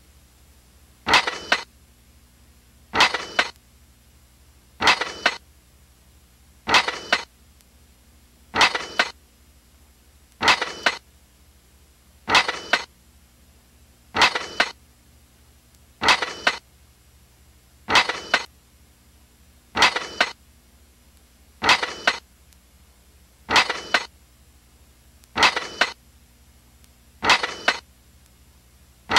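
A short, sharp clank with a brief metallic ring, repeated evenly about every two seconds over a faint steady hum.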